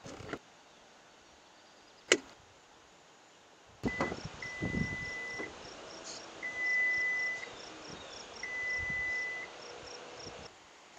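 The charge port door on a Ford F-150 Lightning clicking as it is pressed, a small click at first and one sharp click about two seconds in. Later, three steady high electronic beeps, each about a second long and a second apart, over faint quick chirping.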